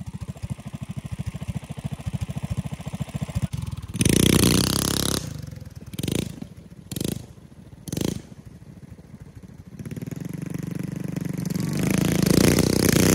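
Small single-cylinder Predator 212 four-stroke engines of a mini trike and a mini bike idling with a quick steady putter, revving hard about four seconds in, then three short bursts about a second apart. Near the end the engines rev up and grow louder as the machines pull away.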